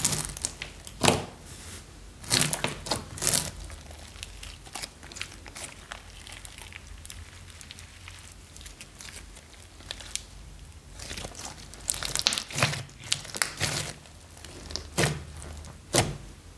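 Crunchy foam-bead slime being stretched, pressed and poked by hands, crackling and popping. The sound comes in several louder bursts, about a second in, a few seconds in, around twelve seconds and near the end, with fainter crackling between.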